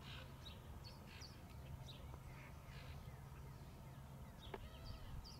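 Faint outdoor ambience: scattered short bird chirps and calls over a low steady hum, with a single sharp click near the end.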